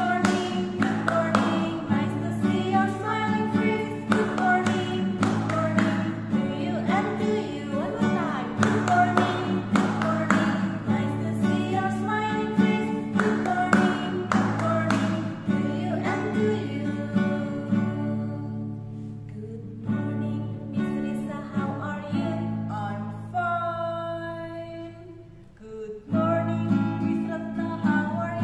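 Two women singing a song to a strummed acoustic guitar. Near the end the strumming stops briefly under a long held sung note, then starts again.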